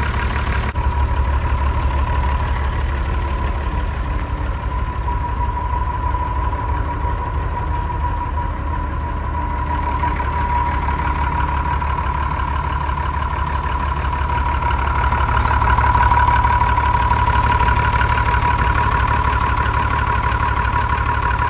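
Perkins 6.354 six-cylinder diesel in a TK Bedford truck idling steadily on its first run after sitting for over 20 years, with a steady whine over the low engine note that grows a little louder past the middle.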